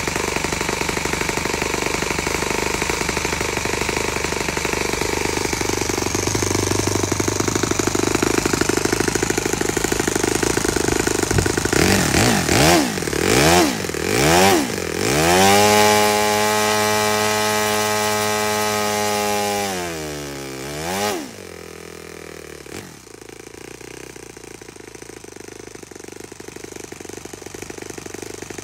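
Saito FA-65 MKII four-stroke glow engine turning a propeller, running steadily, then revved up and down several times about 12 seconds in. It holds a high, steady pitch for several seconds, then is throttled back near the 21-second mark to a quieter, lower idle that runs to the end.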